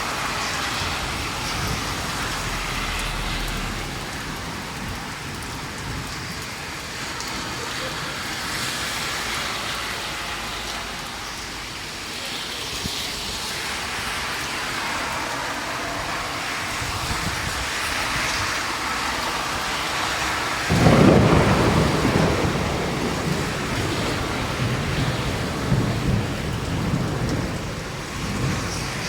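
Steady rain falling, then a sudden low rumble of thunder about three-quarters of the way through that rolls on in swells.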